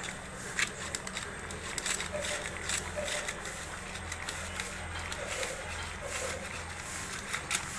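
Labrador dog eating from a stainless steel bowl: irregular wet chewing and licking smacks, with scattered sharp clicks of its mouth and teeth against the steel bowl.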